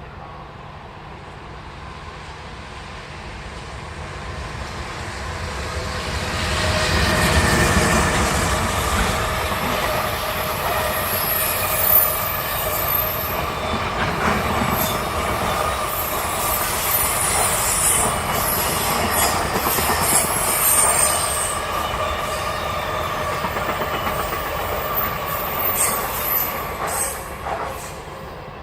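A long freight train passing close by. The noise builds over several seconds, then runs steadily for about twenty seconds with high-pitched wheel squeal and the clatter of wheels over the rails, and falls away near the end.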